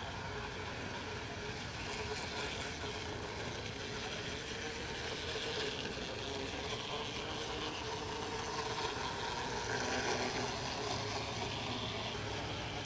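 Model streetcar running along a garden railroad track: a faint, steady motor drone with wheel noise on the rails, a little louder around the middle as it passes.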